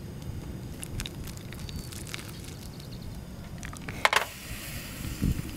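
Hot water poured from a kettle onto coffee grounds in a paper-towel filter over a cup, with a sharp clink about four seconds in and a short hiss of pouring after it, over a steady low rumble.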